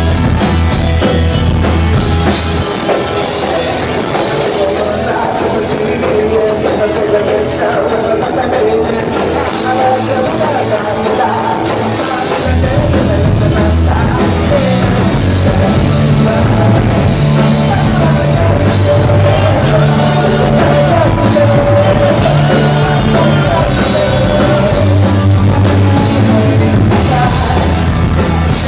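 Punk rock band playing live, heard from the audience: electric guitars, bass and drums with a male lead singer. The heavy low bass notes drop back for a stretch early on and return in full about twelve seconds in.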